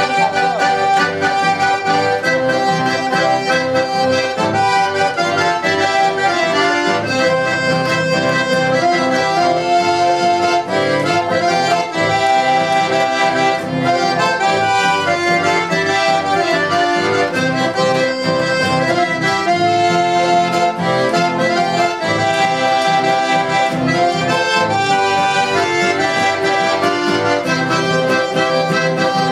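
Button accordion playing a chamamé tune live, with notes sounding continuously and no break.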